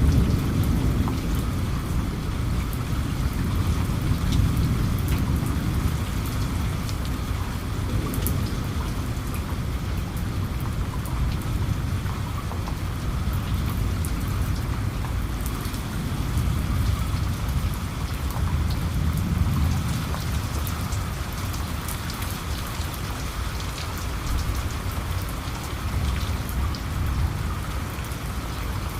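Steady rain falling, a continuous hiss with scattered individual drop ticks, over a deep low rumble that is loudest at the start and slowly eases off.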